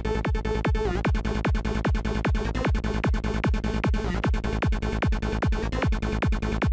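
Psytrance loop: a dark, percussive synth lead made in Native Instruments Massive, playing over a driving kick drum and rolling bass line in a steady fast pulse. About a second in, the lead's tone changes as its patch is adjusted.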